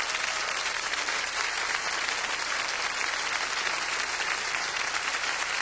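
Studio audience applauding, a steady, even clapping from a large crowd.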